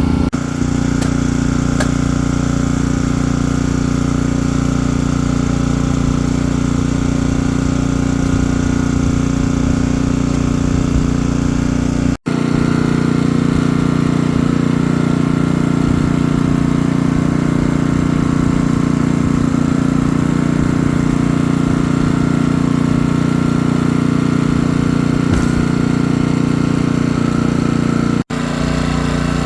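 An engine running steadily at an even speed, broken by two short drop-outs, one about twelve seconds in and one near the end.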